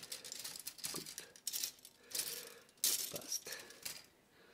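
Plastic parts sprues of a Faller bridge crane model kit clattering against each other and the workbench as they are handled, in several short rattles, going quiet near the end.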